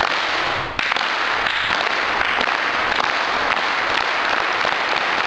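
Large crowd of junior-high kids applauding and cheering. The noise surges right at the start, swells again about a second in, and then holds steady and loud.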